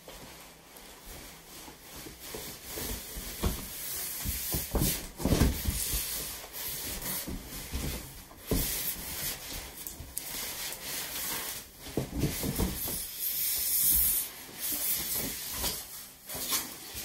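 Plastic protective wrapping and cardboard rustling and rubbing as a large flat-screen TV is lifted out of its shipping box, with scattered knocks and bumps, the loudest about five seconds in.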